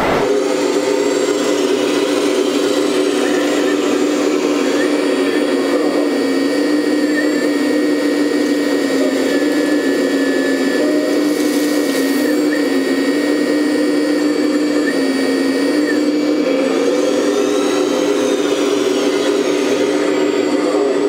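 Electric hydraulic pump of a 1/14 scale Lesu Aoue ET26L RC excavator whining steadily, its pitch dipping briefly several times as the machine works.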